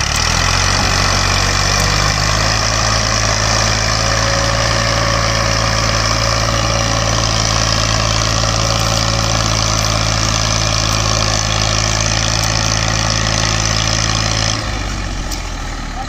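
Farm tractor's diesel engine running hard at a steady pitch as it pulls a trolley heavily loaded with sugarcane. A little before the end the engine note drops suddenly and the sound fades away.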